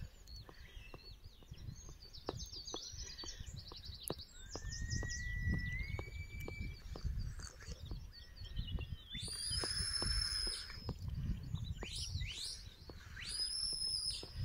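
Shepherd's whistle commands to a working sheepdog: two long, high whistles in the second half, each rising at the start, holding steady, then dropping off. Birdsong chirps and wind rumble on the microphone run underneath.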